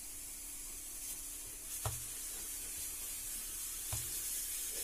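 Wooden rolling pin rolled by hand over dough on a stone countertop, with two soft knocks about two and four seconds in, over a steady hiss.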